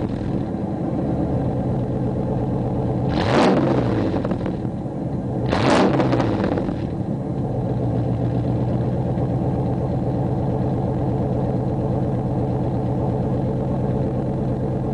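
1988 Chevrolet Camaro IROC-Z V8 idling through a GMMG cat-back exhaust with Edelbrock TES tubular headers and no catalytic converter. The throttle is blipped twice, about three and a half and six seconds in, each rev rising and falling quickly, and then it settles back to a steady idle.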